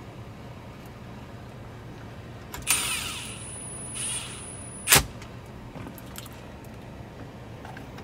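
A cordless brushless impact driver runs briefly, with a high whine that winds down, about two and a half seconds in, and again more weakly around four seconds, driving 7 mm screws back into a dash bezel. A sharp click near five seconds is the loudest moment, over a low steady hum.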